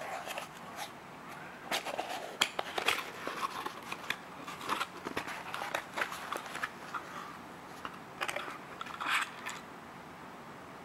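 A small cardboard box being opened and handled by hand: irregular scrapes, rustles and clicks of cardboard, with a loose bundle of jumper wires rattling near the end.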